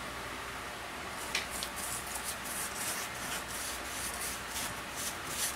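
Paint being brushed onto a plywood tabletop: after about a second of soft hiss, quick scratchy back-and-forth brush strokes, about three a second.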